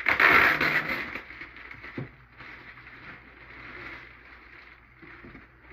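Packaging rustling loudly as the printer's quick start kit is opened, with a sharp click about two seconds in, then fainter handling noise.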